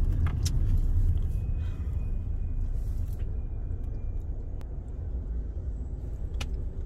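Car running, heard from inside its cabin as a steady low rumble, with a few faint clicks.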